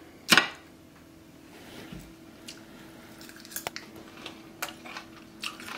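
A fork clinks once on a ceramic plate, then a mouthful of fried potato latke is chewed quietly, with a few faint clicks.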